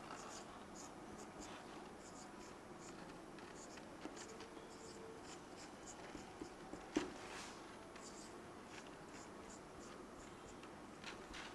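Faint marker pen strokes squeaking and scratching on a whiteboard, many short strokes in quick succession, with a single sharp tap about seven seconds in.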